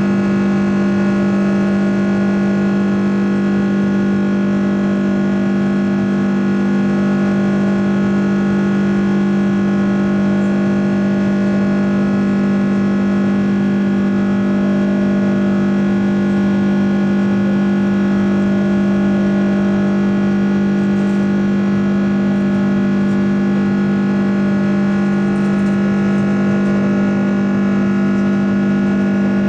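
Airbus A330-300's Rolls-Royce Trent 700 turbofan engines at climb thrust, heard inside the cabin beside the wing: a steady, loud drone with a strong low hum and several steady tones above it, unchanging throughout.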